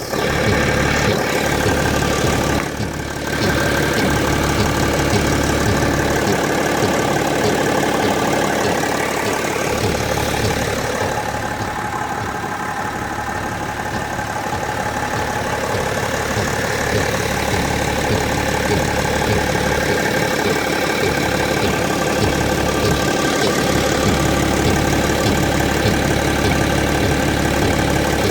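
BMW X5 E70 running at idle: a steady mechanical hum with several steady tones, holding the odd noise that the owner calls strange.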